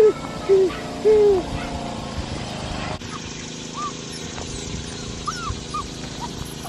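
A puppy whining in short cries that rise and fall, three loud ones in the first second and a half, then fainter, higher-pitched whimpers from about three seconds in.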